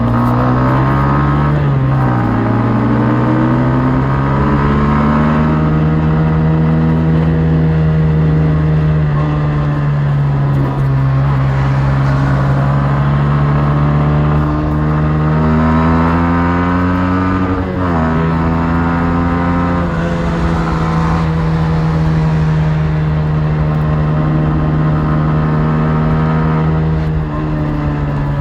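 Yamaha MT-15's 155 cc single-cylinder engine running through its stock exhaust, under way at a fairly steady pitch. The engine note dips sharply and recovers twice, about two seconds in and again about two-thirds of the way through, as when the throttle is closed for a shift.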